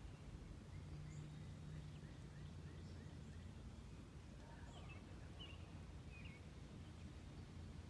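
Faint birds chirping in scattered short calls, including a run of quick little rising notes, over a steady low hum.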